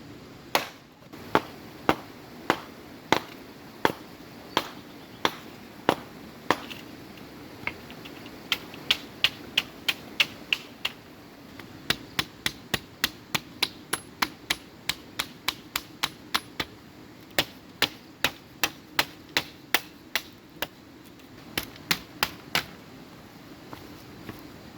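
A tool striking bamboo again and again with sharp knocks. They come at an even pace for the first several seconds, then in quicker runs of about three a second.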